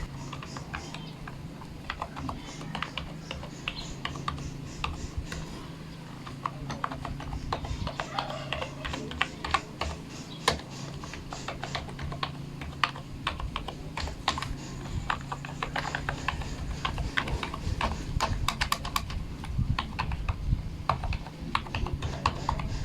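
A4Tech external keyboard being typed on: rapid, irregular key clicks as each key is tried in turn to test it after a cord repair. A low steady hum runs underneath.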